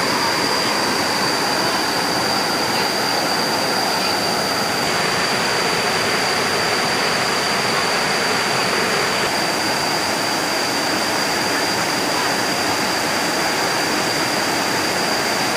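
Whitewater rapids rushing over flat rock ledges: a steady, even rush of water, with a thin steady high-pitched tone over it.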